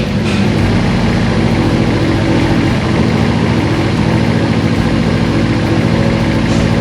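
Toyota AE86's 4A-GE four-cylinder engine idling steadily, running again with a newly fitted steel head gasket.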